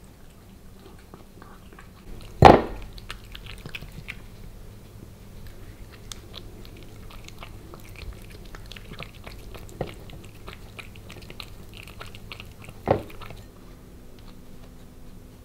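Ragdoll cat eating wet cat food quickly from a small glass bowl: a steady run of small chewing clicks and smacks. A sharp knock about two and a half seconds in is the loudest sound, and a smaller one comes near the end.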